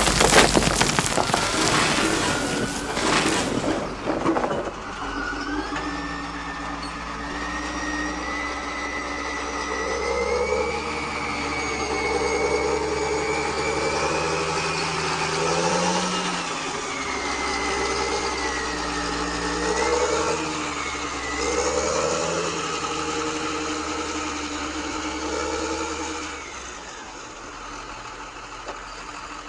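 Radio-controlled construction model running: a motor whine that rises and dips with the throttle over a steady low hum, cutting off a few seconds before the end. The first few seconds hold dense crackling.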